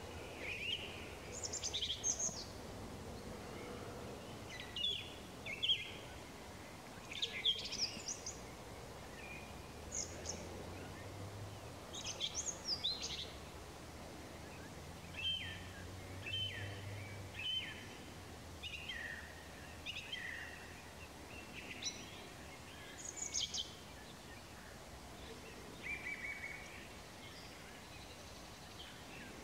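Several songbirds singing and calling in short, scattered phrases of chirps and trills, with a faint low hum underneath.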